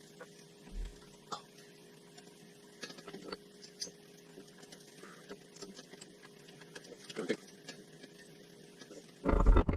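Scattered light clicks and taps over a faint steady hum, then a sudden loud rumbling noise near the end.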